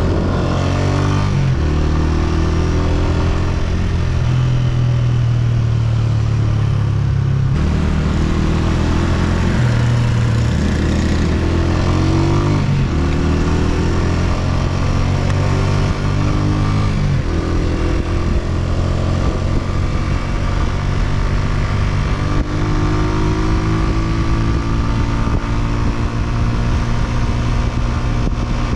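Honda CG125's single-cylinder four-stroke engine running under way. Its pitch climbs and drops back several times as the rider accelerates and changes gear, with wind and road noise around it.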